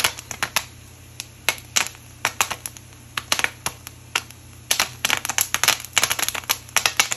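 Popcorn kernels popping in hot oil and butter inside a sealed aluminum-foil pouch: irregular sharp pops, scattered at first and coming much faster and closer together about two-thirds of the way through.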